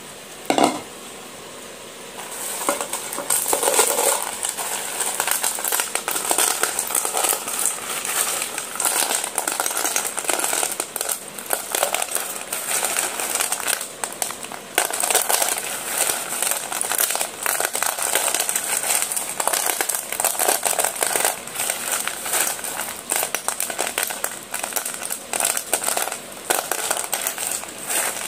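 A single knock about a second in, then hands stirring and squeezing a heap of slate pencil sticks in a metal bowl: a dense, steady crackling clatter of many small clicks as the sticks rub and knock against each other and the bowl.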